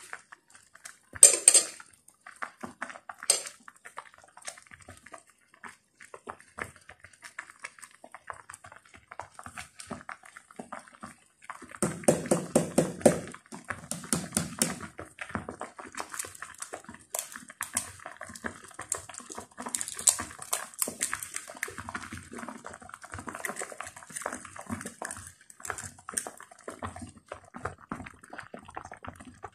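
Instant noodles in water cooking in a small electric skillet, with scattered clicks and taps of utensils against the pan. About twelve seconds in, a short pitched sound comes up over it, and again briefly about two seconds later.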